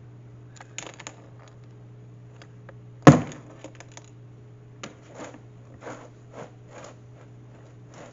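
A sharp knock about three seconds in, then a run of light clicks and taps, over a steady low electrical hum.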